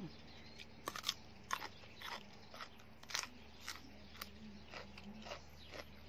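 A person biting into and chewing a raw red radish: a run of crisp crunches, about two a second, starting about a second in.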